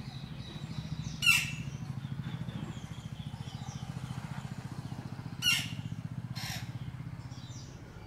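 Small birds chirping faintly over a steady low motor hum, with two brief, loud, sharp bursts of sound about a second in and about five and a half seconds in.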